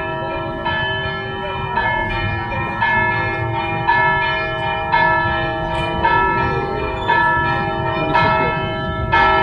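Church bells ringing after mass, struck about once a second, each stroke sounding a cluster of ringing tones. The ringing cuts off suddenly at the end.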